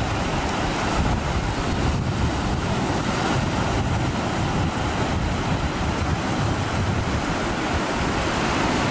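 Ocean surf breaking and washing up the shore, with steady wind rumbling on the microphone.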